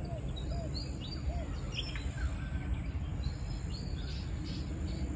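Several birds chirping and calling over a steady low background rumble. A lower, arching call repeats about three times in the first second and a half.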